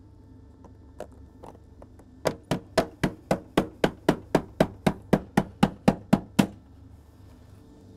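Glazing mallet tapping a uPVC glazing bead into a door's frame to clip it home over the glass: a rapid run of about seventeen sharp taps, roughly four a second, starting about two seconds in and stopping near the end.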